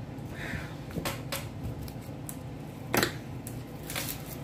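A kitchen knife and a cut red onion being handled on a wooden cutting board: a few scattered light taps and clicks, with a sharper knock about three seconds in.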